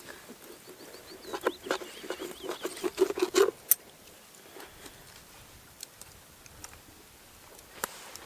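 A duck dabbling and feeding: a quick run of soft wet clicks and patter from its bill, starting about a second in and lasting about two seconds, then a few scattered ticks.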